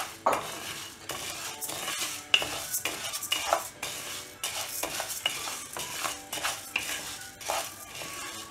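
Wooden spatula stirring and scraping urad dal grains in a nonstick pan in quick, irregular strokes, the lentils rattling as they dry-roast on low flame.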